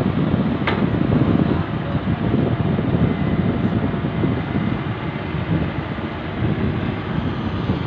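Diesel excavator engines running at a construction site, with wind buffeting the microphone in uneven gusts; one sharp click about a second in.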